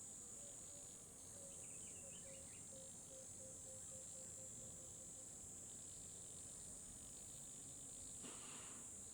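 Faint, steady, high-pitched insect chirring, like crickets. A faint run of short, evenly spaced low notes fades out about halfway through, and a brief soft rustle comes about eight seconds in.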